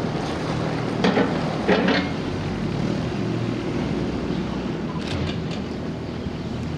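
Caterpillar 301.4 mini excavator running steadily, with a few sharp knocks about one and two seconds in, and a fainter one about five seconds in.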